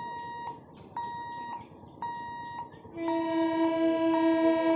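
Level-crossing warning beeper sounding a short electronic tone about once a second; about three seconds in, an approaching EMU local train sounds its horn, one long steady note that is much louder than the beeper.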